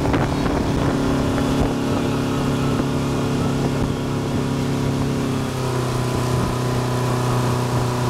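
Motorboat engine running steadily at speed while towing, over the rush of its churning wake; the engine note drops a little about five and a half seconds in.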